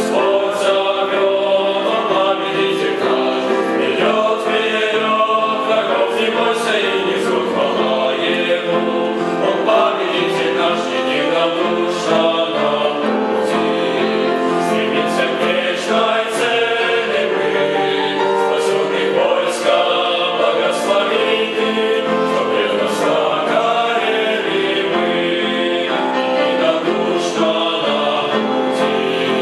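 Male vocal ensemble singing a Russian-language Christian hymn in several-part harmony.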